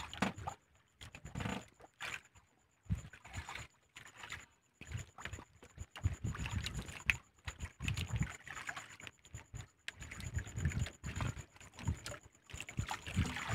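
A fishing handline being hauled in hand over hand over the side of a small boat: irregular rustles, knocks and water splashes in short bursts with brief gaps.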